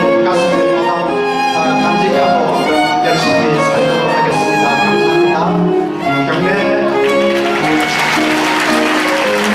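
Violin-led string ensemble playing a melodic instrumental piece. Applause swells in beneath the music from about seven seconds in.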